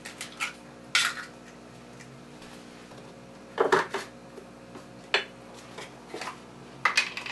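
Kitchen containers and utensils handled on a countertop: a scattered run of light knocks, clinks and clicks, loudest about three and a half seconds in, over a faint steady hum.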